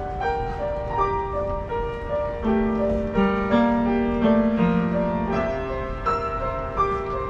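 Upright piano played four hands: a melody in the upper middle register over held chords, with rapidly repeated notes in the middle range from about a third of the way in until shortly past the middle.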